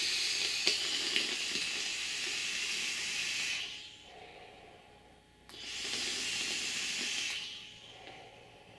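Long draw on a Joyetech Cuboid Mini e-cigarette, air hissing through the atomiser for about three and a half seconds. After a pause, a second breathy hiss of about two seconds as the vapour is blown out.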